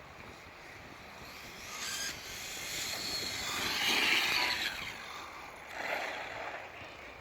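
Acme Werewolf RC car running over rough ground, its motor and tyres getting louder toward a peak about four seconds in, then fading as it moves away, with a smaller rise near the end.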